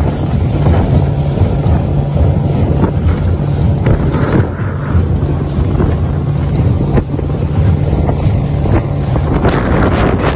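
Panga boat under way: a steady outboard motor hum under heavy wind buffeting the microphone, with the hull knocking and slapping through choppy water a few times, once about two-thirds of the way in and again near the end.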